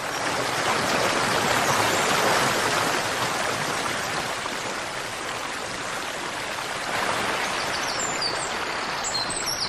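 Whitewater mountain stream rushing over boulders, a steady, full rush of water. A few bird chirps come in near the end.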